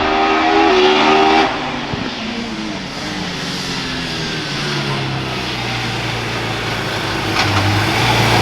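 Hill-climb race car engine at high revs, its pitch stepping with quick gear changes, cutting off about a second and a half in. Then another race car's engine at a lower, steadier pitch, growing louder toward the end.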